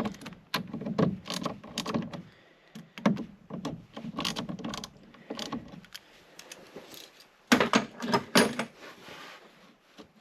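Irregular metal clicks and clinks of a socket wrench working the bolts and nuts of a winch switch box, with a louder flurry of clatter near the end.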